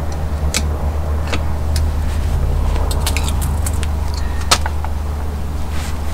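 Ratchet and wrench clicking, with light metal clinks, as a bolt on a seal-installer tool is turned against a Unimog front hub, drawing the tool in to press the hub seal's metal ring home. Under it runs a steady low machine hum.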